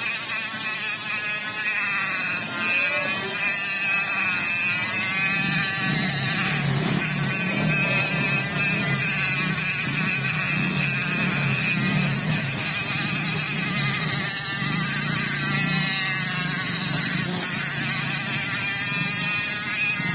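A small high-speed electric motor running steadily with a constant hiss, its whine wavering up and down in pitch as if under changing load.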